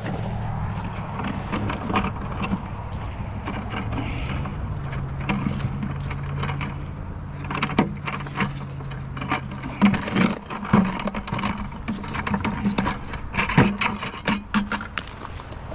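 Boots crunching and rustling through dry grass and loose stones on a creek bank, with irregular clicks and crackles of handling, over a steady low hum.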